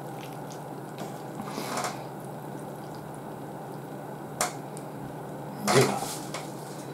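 Chopsticks lifting ramen noodles out of the broth, with faint wet dripping sounds. A light click about four and a half seconds in and a short breathy burst near the end.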